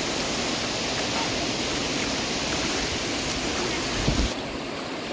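Small waves washing over a shallow sandy beach, a steady rush, with wind on the microphone. A low thump about four seconds in, after which the sound turns duller.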